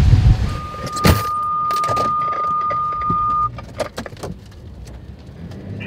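Loud wind buffeting the microphone that drops off sharply in the first half second, then a sharp knock and a steady high electronic beep lasting about three seconds inside a car's cabin, followed by quieter scattered clicks and small knocks.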